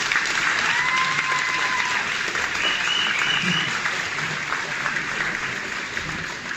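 Audience applauding in a hall, with a long whistle about a second in and another near the middle; the applause slowly dies down.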